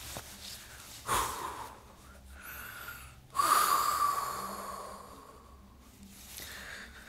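A man breathing out hard: a short huff about a second in, then a longer, louder exhale that fades away over a couple of seconds.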